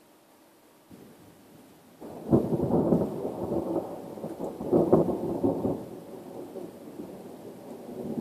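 Thunder close to a lightning strike: a faint rumble starts about a second in, then a sudden loud crack. A crackling rumble follows with a second loud peak a few seconds later, and it dies away into a low rolling rumble.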